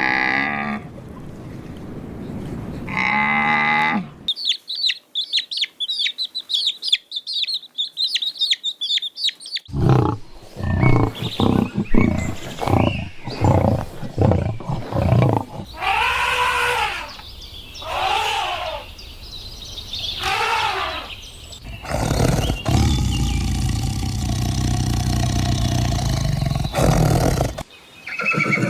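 A series of different animal calls one after another: a high, rapid trill lasting several seconds, then a run of short, loud calls, then long calls that rise and fall in pitch, and a long, steady call near the end.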